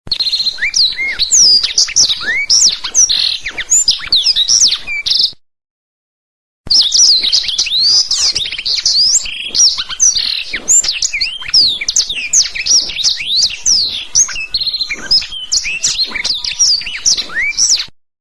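Blackthroat (black-throated canary) singing a fast, varied song of chirps, trills and whistled up-and-down slides. It breaks off into a short silence about five seconds in, then resumes.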